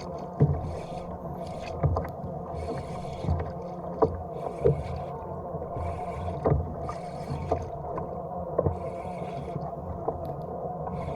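Water slapping and splashing against a fishing kayak's hull, about once a second, with a few soft knocks and a steady low hum underneath.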